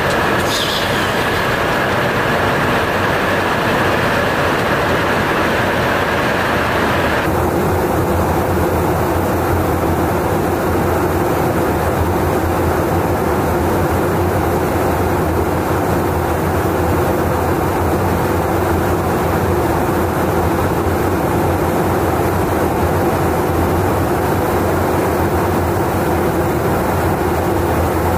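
Steady, loud rush of airflow and engine noise inside a KC-135 Stratotanker's boom operator pod during aerial refuelling. A high steady whine in it cuts out abruptly about seven seconds in, and the noise goes on with a slightly different tone.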